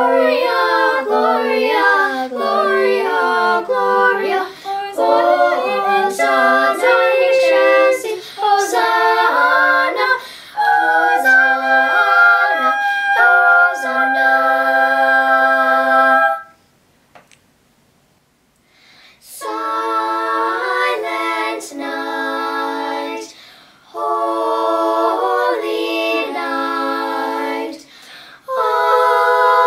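A family singing a cappella in several voice parts, with women's and children's voices among them. Quick moving lines break off just past the middle for about three seconds of silence, then the singing resumes in slow, held chords.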